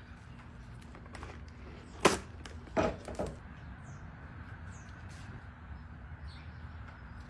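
Clear plastic wrap torn off against the box's serrated cutting edge with one sharp snap about two seconds in, followed shortly by two softer rustles of the film.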